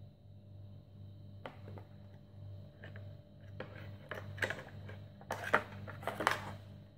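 A cable being handled and pulled out of a cardboard box: scattered clicks and rustles, loudest from about five to six and a half seconds in, over a steady low hum.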